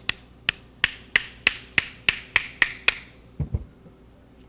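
A hammer tapping on a kingpin bolt to drive the bearing assembly out of a go-kart front spindle: about ten quick, ringing metal-on-metal taps, roughly three a second, that stop about three seconds in. A short dull knock follows.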